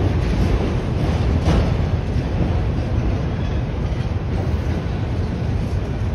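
Norfolk Southern freight train's autorack cars rolling past on steel wheels: a steady low rumble of wheels on rail, with one brief click of wheels over a rail joint about a second and a half in.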